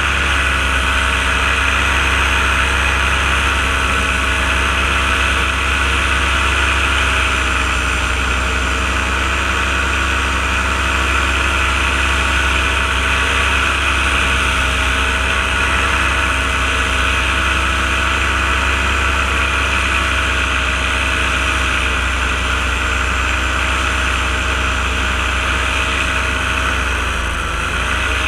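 Engine and propeller of a powered paraglider running steadily at cruising throttle, with a rushing haze of wind and prop wash. The engine eases off slightly near the end.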